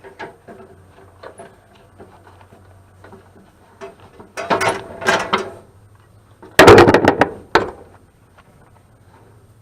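Hand tools and metal parts of a dehumidifier clattering as it is pulled apart for scrap: small clicks throughout, two scraping knocks around four and five seconds in, then a loud rattling clatter of metal about seven seconds in.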